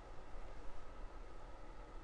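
Quiet room tone: a steady low hum under a faint even hiss.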